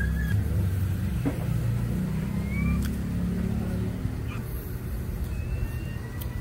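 Motor vehicle engine running, its low pitch shifting over the first four seconds, then steadier.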